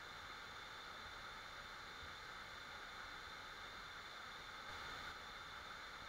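Waterfall's steady rush of falling water, an even, fairly faint hiss with no breaks.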